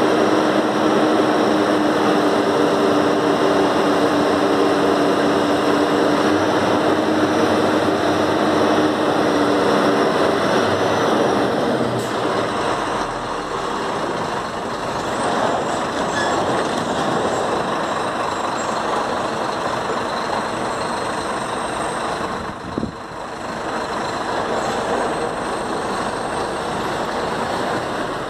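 Scania truck's diesel engine running as it slowly hauls a double-trailer rig. The engine hum is loud and steady for the first ten seconds or so, then drops to a quieter, rougher running sound.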